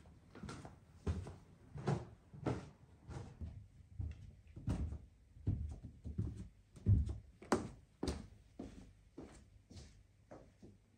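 Footsteps of a person in slippers walking down a carpeted staircase: soft thuds about two a second, loudest a little after the middle.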